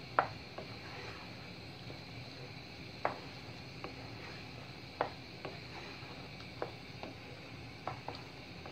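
Wooden spoon stirring risotto in a pan, giving about ten short, irregular knocks and scrapes against the pan, the loudest just after the start, over a steady low background.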